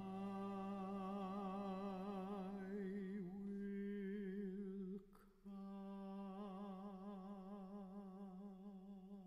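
Classical tenor voice holding a long note with wide vibrato, breaking off briefly about five seconds in and then taking up the same note again, over a faint steady low note.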